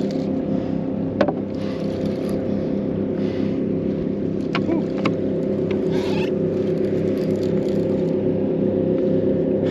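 Small boat motor on a fishing kayak running at a steady pace. A sharp click comes about a second in and two more about halfway through.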